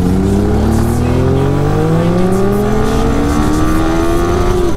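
Sport motorcycle engine accelerating hard through one long pull, its pitch rising smoothly and steadily.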